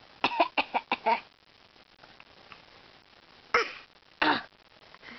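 A person's playful fake coughing: a quick run of about five short coughs in the first second, then two single coughs past the middle, less than a second apart.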